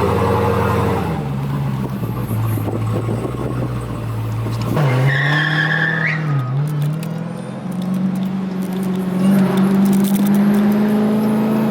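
Dodge Challenger Hellcat's supercharged 6.2-litre HEMI V8 running under way. About five seconds in there is a sudden change in the sound, with a brief high whine. Later the engine note climbs slowly as the car accelerates.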